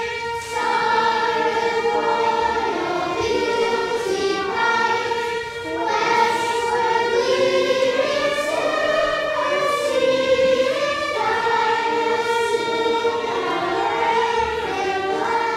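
A group of children singing together, a slow song sung in long held notes.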